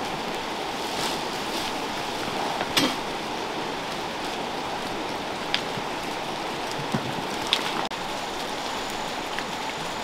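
Steady rushing of a river flowing over stones, with a few short clicks and knocks, the most prominent about three seconds in.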